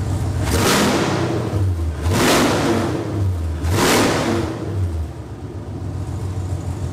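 Camaro's 6.2 L LT1 V8 running through open long-tube headers with no cats, idling and blipped three times, at about half a second, two seconds and four seconds in, each rev falling back to idle.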